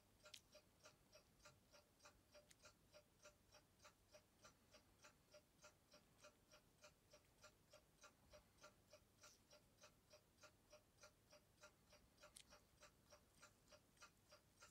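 Faint, steady ticking of a clock, about three even ticks a second, with one sharper click near the end.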